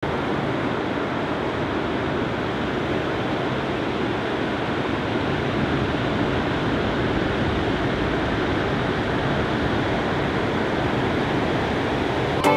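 Steady rush of breaking ocean surf.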